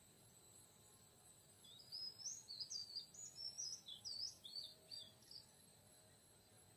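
Oriental magpie-robin singing a quick, varied phrase of whistled notes for about three and a half seconds, starting a couple of seconds in, over a steady high insect drone.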